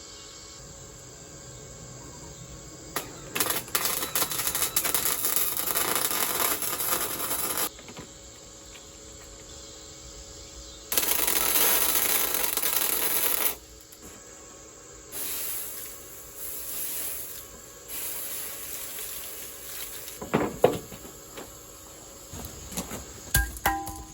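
Power tool working rebar in two bursts of harsh, crackling hiss a few seconds each, followed by lighter scraping noise and a few sharp knocks near the end.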